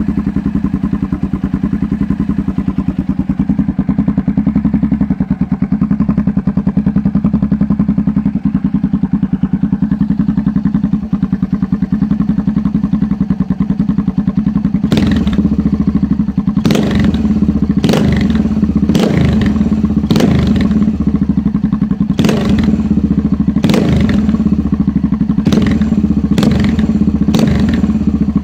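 Honda NX650 Dominator's single-cylinder four-stroke engine running through an SC Project aftermarket silencer. It idles steadily, then from about halfway through it is given about a dozen quick throttle blips, roughly one a second, each a short sharp rise and fall in revs.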